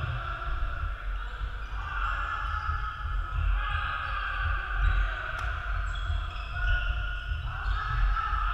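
Echoing background noise of a large indoor sports hall: a steady low rumble with faint, distant voices and calls across the court. One sharp click about five and a half seconds in.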